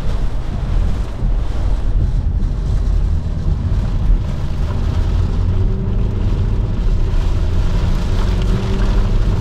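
Strong gusting microburst wind buffeting the car and the microphone: a loud, steady low rumble. A faint car engine hum comes through underneath from about halfway.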